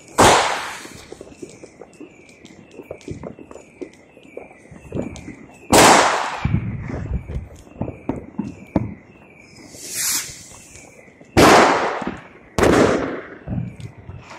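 New Year's fireworks going off: four loud bangs, each trailing off in a long echo, with scattered smaller firecracker pops between them and a brief hiss about ten seconds in. A high, short chirp repeats steadily about twice a second in the background.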